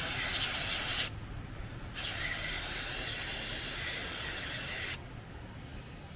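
Two bursts of aerosol cleaner spraying with an even hiss, the first about a second long and the second about three seconds long, each stopping abruptly, as the power steering gearbox's input shaft area is sprayed clean of leaking fluid.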